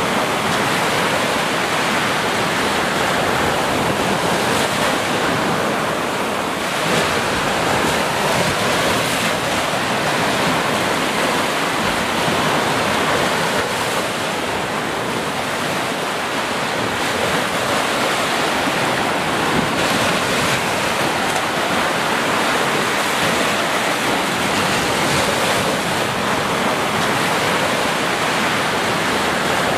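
Small waves breaking and washing up a sandy beach: a steady rush and hiss of surf with only slight rises and falls.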